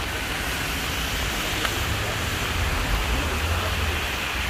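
Heavy rain pouring down, a steady hiss with a low rumble underneath.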